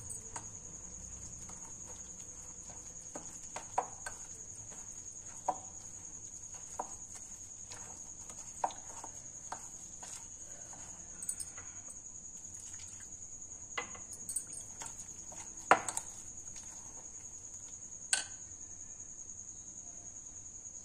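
A steel spoon stirring a thick flour-and-yoghurt batter in a glass bowl, with soft scraping and occasional sharp clinks of the spoon against the glass, the loudest near the end. A steady high-pitched whine continues in the background.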